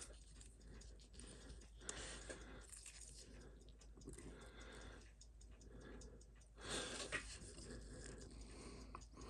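Faint small clicks and scrapes of watch parts and watchmaker's tools being handled, with a brief louder rustle about seven seconds in.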